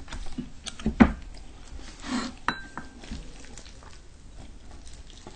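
Utensils clinking and scraping against plates and bowls as noodles are served out. The loudest knock comes about a second in, and a short ringing clink about two and a half seconds in.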